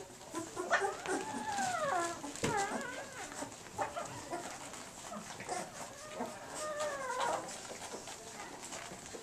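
Two-week-old standard poodle puppies whining and squealing while they nurse. There are two long whines that rise and then fall, one about a second in and one about six seconds in, with shorter wavering squeaks between them.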